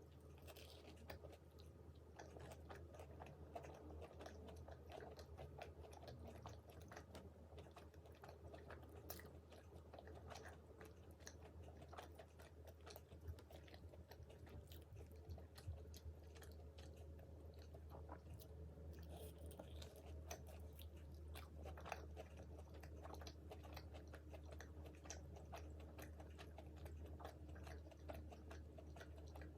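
Faint, close-up chewing and biting of fried food, with many small crunches and wet mouth clicks.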